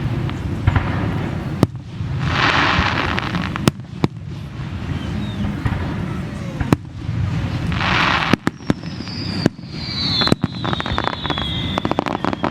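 Fireworks display: repeated sharp bangs of shells bursting over a continuous low rumble, with two spells of hissing. Near the end comes a whistle falling slowly in pitch.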